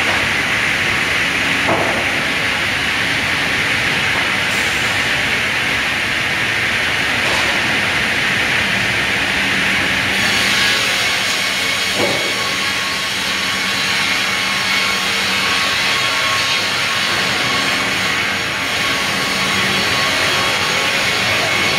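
Sawmill machinery with a belt cross conveyor running: a steady, loud hissing whir over a low hum. A few short knocks of wood are heard along the way.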